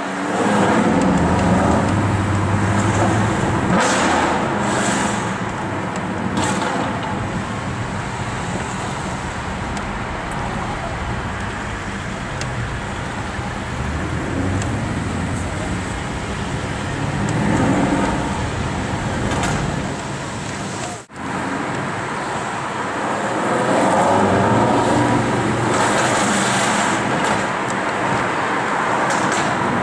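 Mercedes-Benz SLS AMG's 6.2-litre V8 through a Supersprint aftermarket exhaust, running in city traffic and heard from a car following behind. It swells louder under throttle three times: just after the start, about two-thirds of the way through, and again near the end. Road and traffic noise runs underneath.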